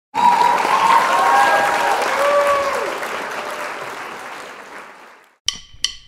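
Crowd cheering and applauding, with a few shouts or whistles on top, fading out gradually over about five seconds. Near the end, two short sharp struck notes sound about half a second apart.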